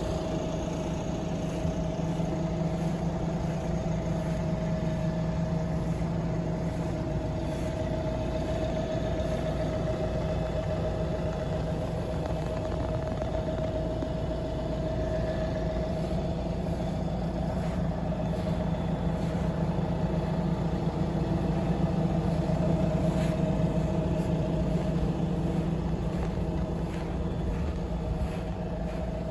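Fendt 512 tractor's diesel engine idling steadily, a low hum with a steady higher tone over it.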